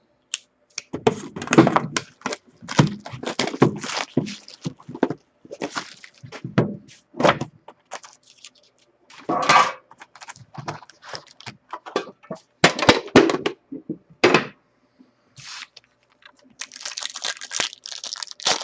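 Hands opening a pack of hockey trading cards: the foil wrapper crinkles and tears, mixed with irregular knocks, clicks and thunks as the pack and cards are handled.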